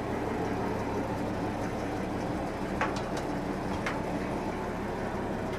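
Ore-processing machinery of a restored gold mill running: a steady mechanical din with a low hum, and a couple of sharp clicks about three and four seconds in.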